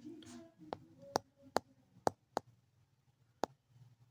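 About six sharp, separate clicks of a stylus tapping a touchscreen as words are handwritten on it.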